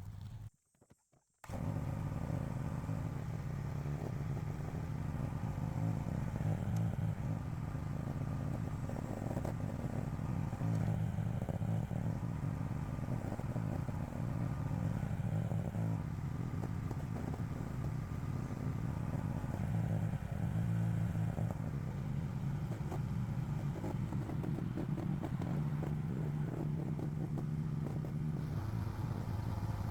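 AGT LH12R mini excavator's engine running steadily under load while it digs, with some clatter. The sound cuts out briefly near the start.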